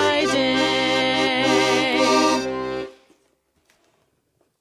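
Piano accordion and two women's voices holding the final chord of a folk song, stopping together about three seconds in, then near silence.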